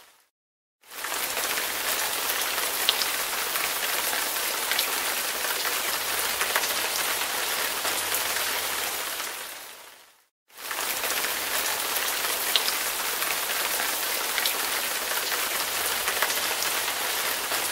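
Steady rain with scattered drop taps, an even hiss. It fades out to a moment of silence just after the start and again about ten seconds in, then comes straight back each time, as a looped rain track does.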